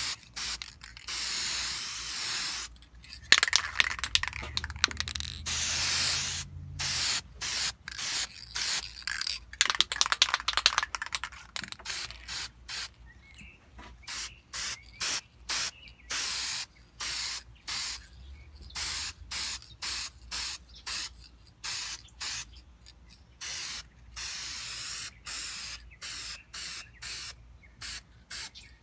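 Aerosol spray-paint can hissing in many short stop-start bursts, with a few longer passes of one to three seconds in the first half, as a second coat of paint goes on.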